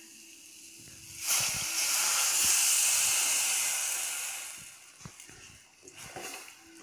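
Water poured into a hot stainless steel pan of fried spice paste and oil hisses and sizzles loudly, starting about a second in and dying away after about three seconds. A few clicks of a spoon against the pan follow near the end as the mixture is stirred.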